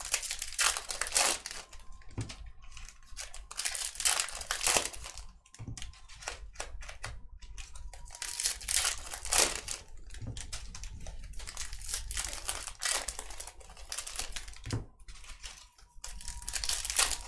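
Foil trading-card pack wrappers crinkling and tearing as packs are ripped open and handled, in irregular bursts every couple of seconds.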